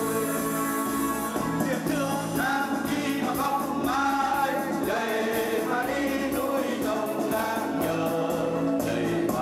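A group of men singing a Vietnamese song together into microphones, over music.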